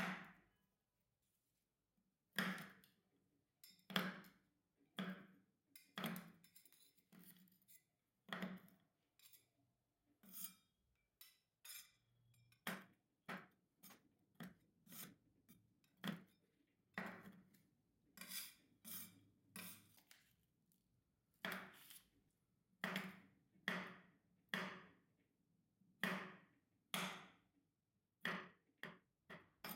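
A metal blade chopping dark chocolate and roasted hazelnuts on a steel plate. Each cut ends in a sharp tap of blade on metal, roughly once a second, with quicker pairs of taps in places.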